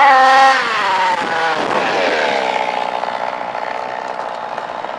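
29cc two-stroke petrol engine of a 1/5-scale Baja 5B SS RC buggy, running at high revs, then its note falls over about two seconds and settles to a steady lower buzz that slowly fades.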